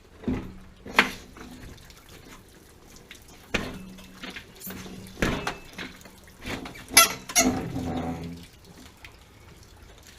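A series of sharp metallic clanks and knocks, several ringing on briefly, with water sloshing and trickling, as an old gas water heater and its connections are worked loose and shifted.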